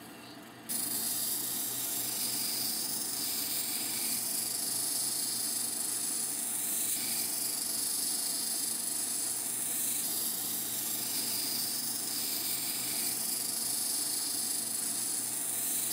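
Lapidary cabbing machine running with water on its wheels: a steady wet hiss as a tiger eye cabochon on a dop stick is worked against the 14,000-grit diamond polishing wheel. The hiss comes in suddenly under a second in.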